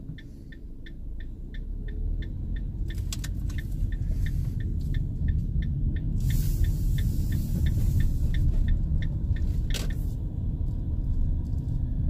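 Van's turn signal ticking at about three clicks a second, over engine and road rumble that grows louder as the van pulls away through a turn; the ticking stops near the end.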